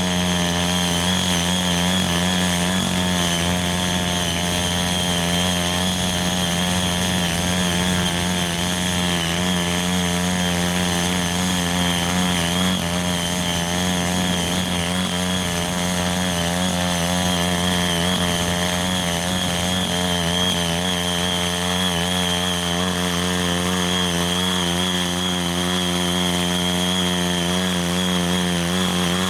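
Ching Yee CY80 mini cultivator's 5 HP engine running steadily under load while its rotary tines till the soil; the pitch wavers slightly.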